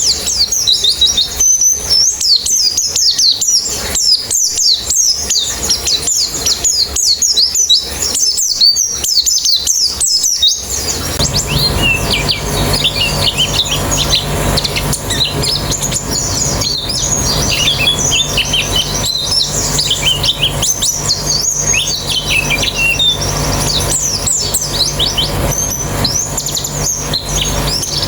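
A group of white-eyes (pleci) singing together: dense, fast, high-pitched twittering of many overlapping chirps. About eleven seconds in, a steady low hum and background noise come in underneath.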